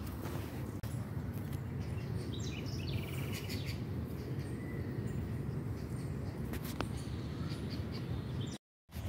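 Outdoor ambience: a steady low rumble on the microphone, with faint bird chirps about two to three seconds in and a few light clicks. The sound drops out completely for a moment near the end.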